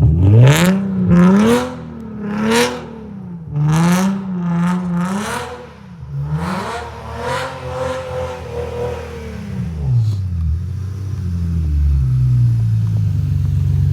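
Infiniti Q50's V6 exhaust, a full Tomei exhaust system with PPE long-tube headers, revved in about six quick blips with a raspy edge at each peak, then dropping back to a steady idle about ten seconds in.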